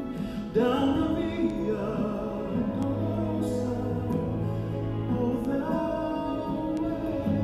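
A men's vocal ensemble singing a sacred song in harmony, with long held notes.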